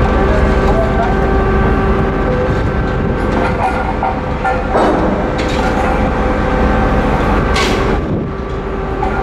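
Car ferry's engines running with a steady, loud droning hum over a low rumble as the vessel gets under way. A short hiss comes about seven and a half seconds in.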